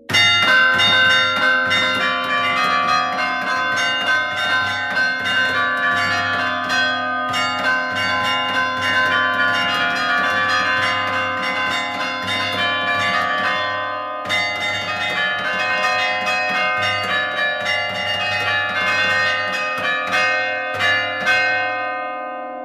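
A peal of bells rung rapidly, many strikes a second overlapping into a continuous clangour. It starts suddenly, dips briefly about two-thirds of the way through, and fades toward the end.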